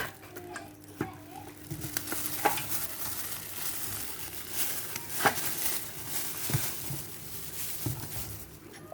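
Packaging being handled: crinkling and rustling with scattered clicks and taps.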